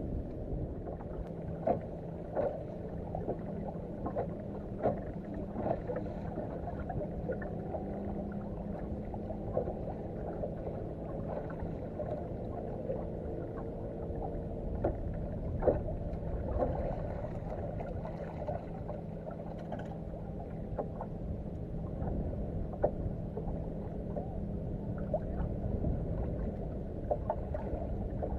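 Water lapping and slapping against the hull of a bass boat, with many small irregular splashes and a low steady hum underneath.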